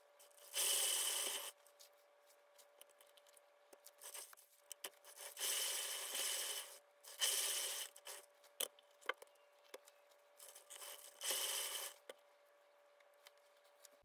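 Homemade paint-pouring spinner turning under a canvas as it is spun by hand, making a scraping whir. There are four bursts of about a second each, each starting strong and dying away as the spin slows, with a few small clicks between them.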